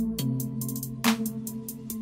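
Electronic background music with a steady beat: sustained low notes under a quick ticking rhythm, with a heavier hit about a second in.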